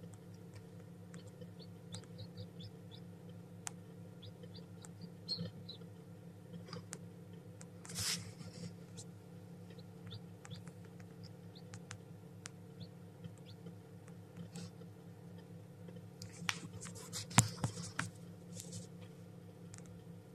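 A steady low hum, with scattered small clicks and short rustles from a newly hatched chick stirring in wood shavings among the eggs. The rustles bunch up about eight seconds in and again near the end, where the loudest, sharpest click falls.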